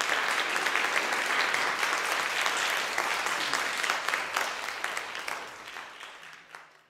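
Audience applauding: dense, steady clapping that fades away over the last two seconds or so.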